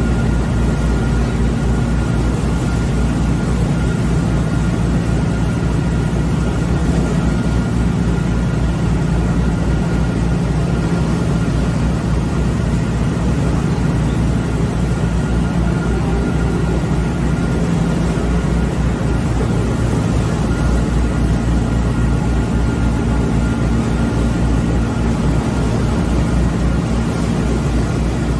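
Heavy farm machinery engine running steadily at constant speed, with a faint steady whine over the low rumble.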